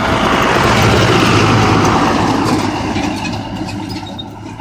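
A pickup truck towing a trailer loaded with a tractor passes close by and drives on; its engine and road noise swell over the first second or two, then fade away.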